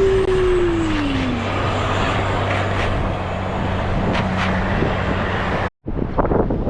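Vehicle engine running, revving up and then easing off in the first second or so and then holding a steady hum, while a car bogged in beach sand is being recovered. The sound cuts off abruptly near the end.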